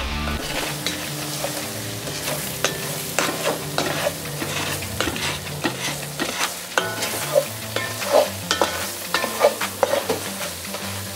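Venison browning in an enamelled Dutch oven, sizzling steadily as a wooden spoon stirs and scrapes through the meat, with frequent small pops and clicks.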